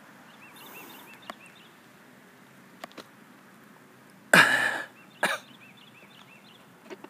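Soft, high bird chirps repeated several times a second in short runs. A loud, short rasping burst comes about four seconds in, with a shorter one about a second later.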